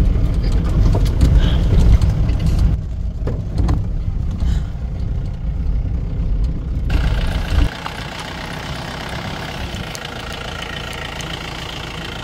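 Mahindra Bolero SUV driving along a dirt track, heard from inside the cabin: engine and road rumble. About eight seconds in the rumble drops away, leaving a quieter, steady hiss.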